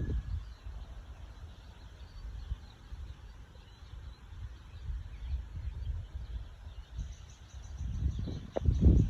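Outdoor nature ambience with faint bird calls over a low rumble that swells near the end. A fast, high-pitched trill starts about seven seconds in.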